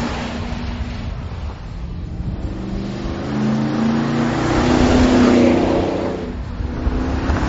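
A 2010 GMC Sierra's Vortec 5.3-liter V8 driving past, first through its stock exhaust and then, partway through, through a Flowmaster Force II cat-back exhaust. The engine note swells to its loudest about five seconds in, dips, and rises again near the end.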